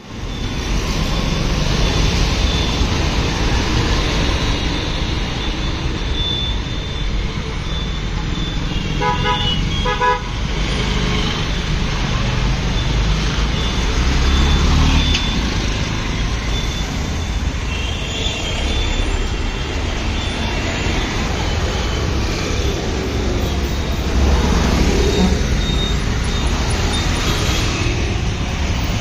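Busy road traffic with engines running and horns honking now and then, including a quick run of short toots about nine seconds in.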